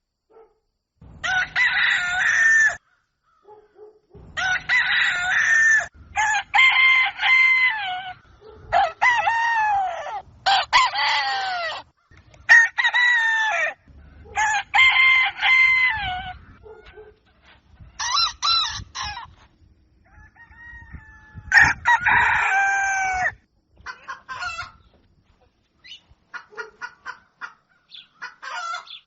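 Roosters crowing again and again, each crow a drawn-out call of one to two seconds with a rising then falling pitch, broken by short silent gaps. Near the end comes a quick run of short clucks.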